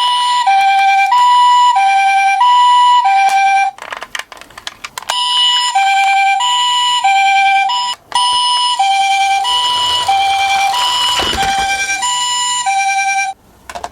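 Toy ambulance's electronic siren playing a two-tone hi-lo pattern, the Japanese ambulance "pee-poh" style, alternating steadily. It breaks off briefly twice with a few clicks, then starts again, and stops near the end.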